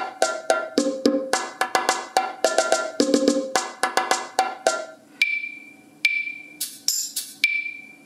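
Roland Octapad SPD-30's built-in bachata percussion loop playing back at 108 beats per minute: a steady, even pattern of percussion hits. About five seconds in it gives way to the machine's sparser ballad percussion loop, with a sustained high ringing tone between hits.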